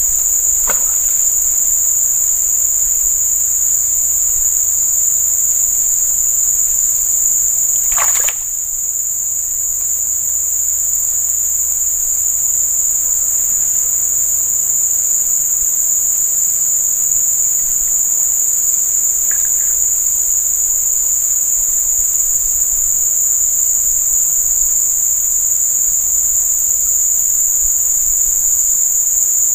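A loud, steady, high-pitched insect drone, one unbroken tone. A short sharp knock cuts through about eight seconds in, with a fainter click just before the first second.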